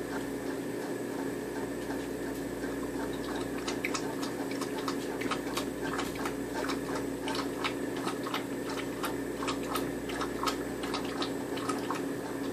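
A dog's claws clicking and tapping irregularly on a hard kitchen floor, several taps a second, starting a few seconds in, as the dog scrambles about after a cicada. A steady hum runs underneath.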